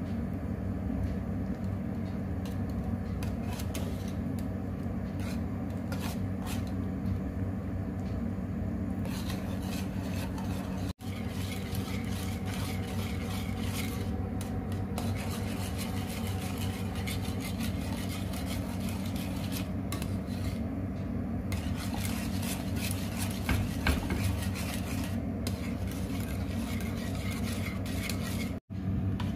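A utensil stirring and scraping in a cooking pot, with scattered clinks, over a steady low hum. The sound cuts out briefly twice.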